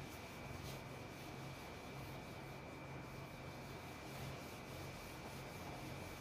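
Handheld whiteboard eraser rubbed across a whiteboard in faint repeated strokes, wiping off marker writing. A thin steady high whine runs underneath.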